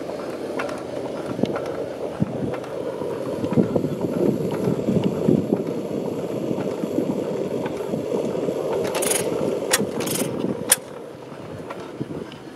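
1880s Kirkness stationary oil engine running with an uneven mechanical clatter. A few short, sharp high sounds come about nine to eleven seconds in, and the level then drops slightly.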